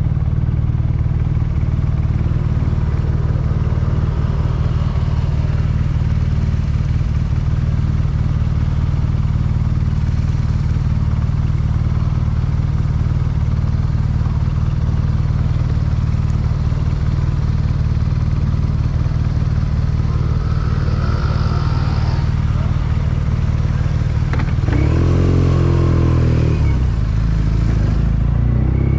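2014 BMW R nineT's boxer twin engine idling steadily, then revving up as the bike pulls away about 25 seconds in. The pitch rises, drops at a gear change and rises again near the end.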